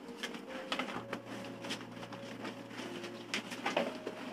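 A few light taps and knocks in a small room, over a faint steady hum.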